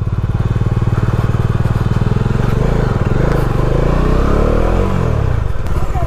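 Bajaj Dominar 400's single-cylinder engine running, its revs rising and falling about halfway through.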